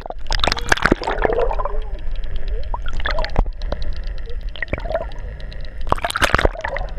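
Seawater sloshing and gurgling around a camera held just under the surface, with loud splashing in the first second and again about six seconds in as waves carry it in and out of the water. A fine crackle runs underneath.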